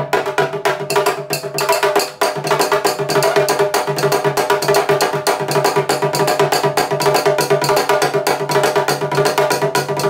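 Hand percussion on a small rope-tuned drum and a handheld percussion instrument, playing a fast, even Candomblé Ketu rhythm (bravum) with sharp wood-block-like clicks, over sustained pitched music.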